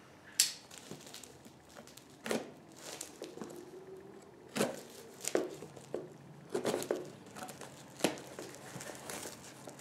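A folding pocket knife slitting open a cardboard box, with cardboard and tape scraping, crinkling and tearing; a sharper rip or scrape comes every second or two.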